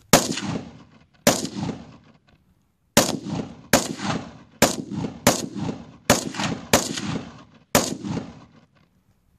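Rifle firing nine shots in quick semi-automatic succession, with uneven gaps of under a second to about a second and a half between them, each shot trailing off in a short echo.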